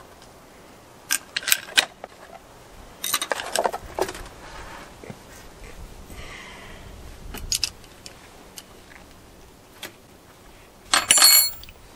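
Loose steel saw chain clinking and rattling as it is handled, in several short bursts of metallic clicks. The loudest burst comes near the end.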